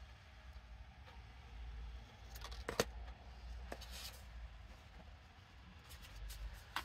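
A few faint snips and paper rustles from paper scissors cutting a piece of scrapbook paper into a tag shape, the clearest about three seconds in, over a low steady hum.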